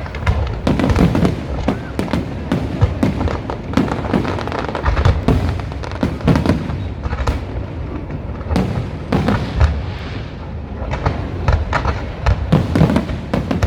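Aerial fireworks display bursting: loud sharp bangs and crackles in quick, irregular succession, mixed with deeper booms.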